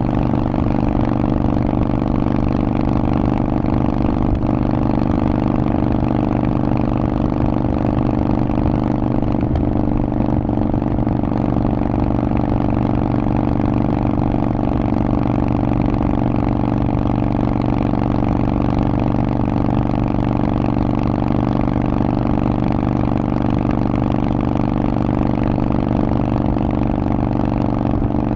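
Harley-Davidson Forty-Eight's air-cooled V-twin running steadily through a Vance & Hines aftermarket exhaust, its pitch holding level with no revving up or down.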